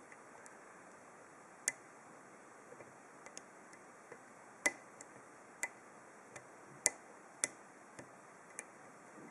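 Irregular light clicks and ticks from a dimple pick working the pins of a dimple lock core under tension, about fifteen spread unevenly, three a little louder than the rest.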